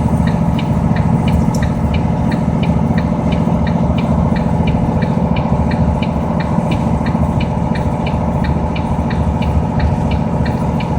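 A vehicle's engine and road noise heard from inside the cabin: a steady low hum with a light, regular ticking about three times a second.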